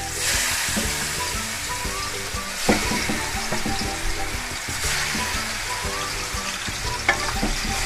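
Chopped, seasoned kidney sizzling in hot oil in an aluminium pot, the sizzle flaring up as more pieces are dropped in. Two sharp knocks, at about three seconds and near the end.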